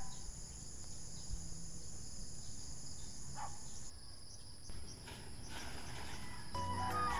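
Steady high-pitched drone of insects calling together in the vegetation, with a low rumble beneath.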